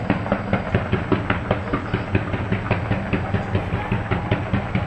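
Small consumer firework crackling, with a rapid, irregular stream of sharp pops and snaps, several a second, over a steady low rushing.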